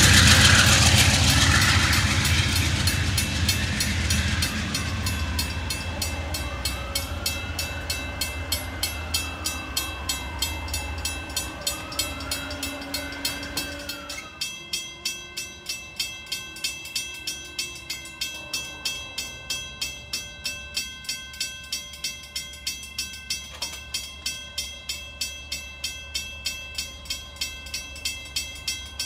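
Amtrak diesel locomotive rumbling as it passes and pulls away, fading over the first half. Throughout, a railroad crossing bell dings steadily about twice a second.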